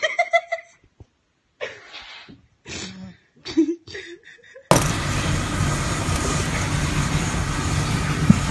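A cat yowling in four short, strained calls. About two-thirds of the way through, a steady, loud mechanical noise with a low hum cuts in suddenly and continues, with one sharp click near the end.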